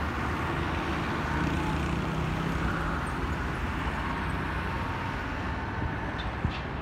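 Steady hum of city traffic from the street below, with a single sharp knock near the end.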